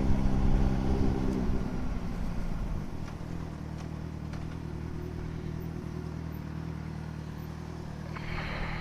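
Yamaha XJ6's inline-four engine running, easing off over the first two to three seconds and then settling into a steady idle.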